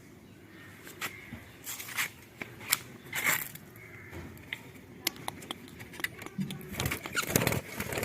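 Scattered sharp clicks and scraping rustles, with a louder stretch of rustling and scraping about seven seconds in.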